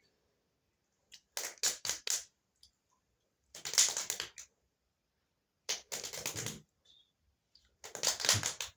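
Four short bursts of crisp crackling and crunching clicks, each under a second, with silence between them.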